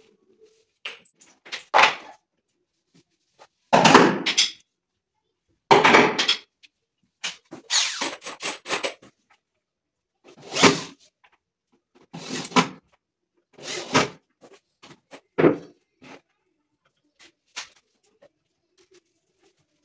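White acrylic-finish cabinet panels being handled, knocked together and set down during carcass assembly: a string of separate knocks and clatters a second or two apart, with a quick run of rattling knocks about eight seconds in.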